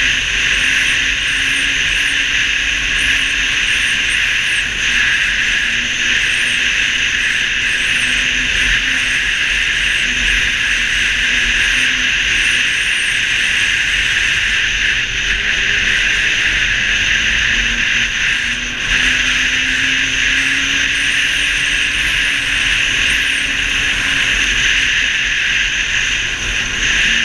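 Snowmobile riding at a steady speed: a continuous loud rushing noise with a low engine tone underneath that drifts slightly up and down in pitch.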